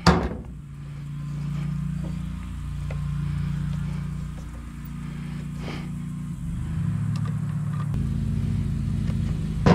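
An engine running steadily in the background, a low hum whose pitch shifts a couple of times, with a few light clicks and knocks as a brush cutter attachment is fitted onto a string trimmer's shaft.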